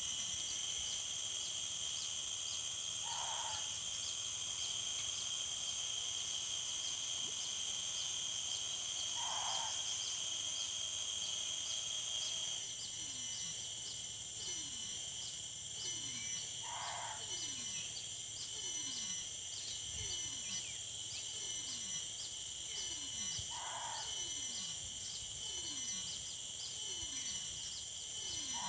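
A short mid-pitched animal call repeating about every six to seven seconds, five times, over a steady high drone of night insects. From about twelve seconds in, quick falling chirps repeat low underneath.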